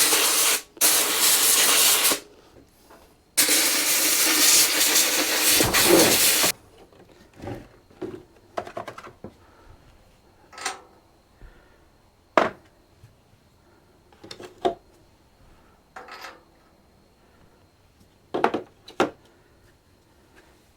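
Compressed air blown around the spark plug well of an old cast-iron Briggs & Stratton engine in two long hissing blasts to clear dirt before the plug comes out. This is followed by scattered light clicks and knocks of hand tools.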